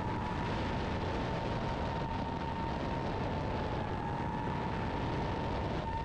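DJI FPV drone's electric motors and propellers in flight, a steady high whine over a heavy rush of wind and propeller wash on the onboard GoPro Hero 8 microphone.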